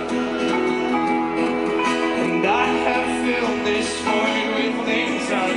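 Live folk-rock band playing between sung lines: strummed acoustic guitar over sustained notes.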